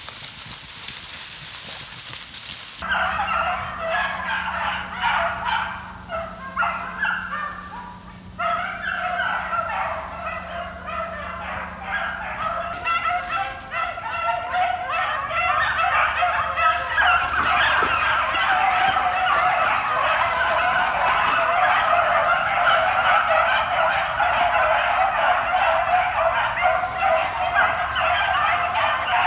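A pack of beagles baying on a rabbit's track, starting after a few seconds of rustling brush. A few broken voices at first swell into a dense, continuous chorus of many hounds about halfway through: the dogs have jumped a rabbit and are running it.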